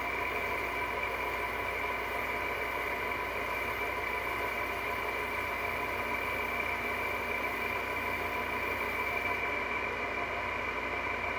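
A 2003 Frigidaire air conditioner, made by Electrolux, running on high: a noisy, even whir with a steady high whine over it.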